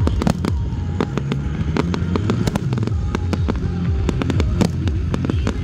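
Aerial fireworks bursting in a dense barrage, rapid irregular bangs and crackles several a second over a continuous low rumble.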